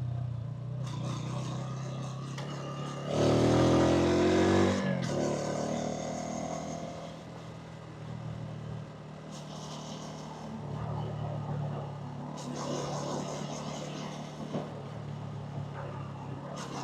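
A 125cc motorcycle engine running steadily under way, with street traffic around it. About three seconds in, an engine revs loudly with a rising pitch for nearly two seconds, then eases back to a steady run.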